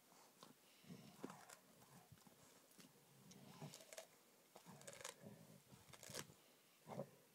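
Collie-shepherd dog chewing a raw rabbit rack: faint, irregular crunches and clicks of teeth on bone and meat, with a few sharper cracks.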